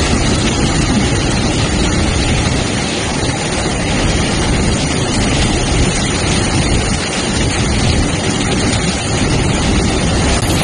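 Freight train rolling through floodwater covering the tracks, its wheels churning up spray: a loud, steady rush of water mixed with the train's rolling noise.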